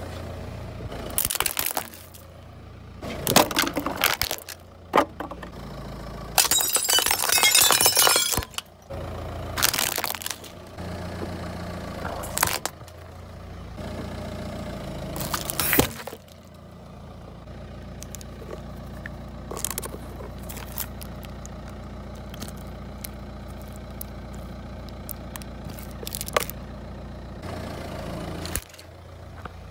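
A car tyre rolling over and crushing objects one after another: a string of sharp cracks, pops and crunches, with a loud run of crackling about seven seconds in. Fewer, smaller clicks follow in the second half. The car's engine runs low and steady underneath.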